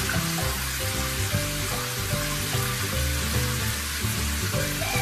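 Steady hiss of water running into a bathtub, over background music.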